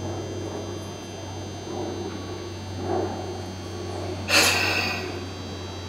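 Steady low electrical hum, with a short loud hiss about four seconds in.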